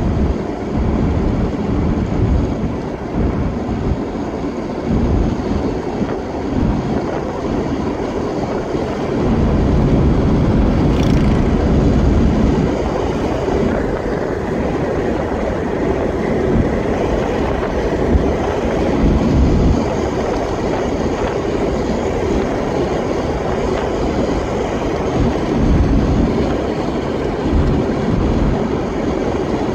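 Road noise inside a moving car: a steady rumble of tyres on asphalt, engine and wind, heavier for a few seconds about ten seconds in.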